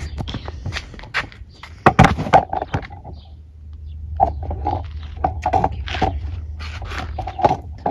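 Handling noise: a string of knocks, taps and scrapes as the phone is moved and things are set down on a marble tabletop, the loudest knocks about two seconds in, over a steady low rumble.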